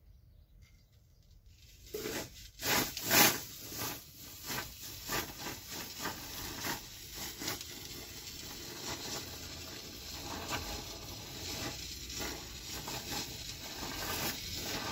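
Aerosol can of expanding foam being dispensed through its straw nozzle: a continuous hiss with irregular crackles and spurts as the foam comes out, starting about two seconds in.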